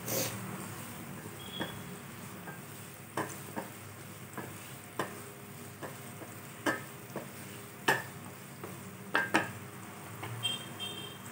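Chopped onions, garlic, curry leaves and green chillies sizzling in oil in a non-stick kadai, stirred with a wooden spatula that knocks and scrapes against the pan about nine times at uneven intervals.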